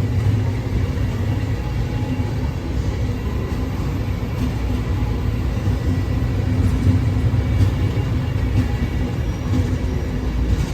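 Train rumbling steadily, with faint thin high tones above the low rumble.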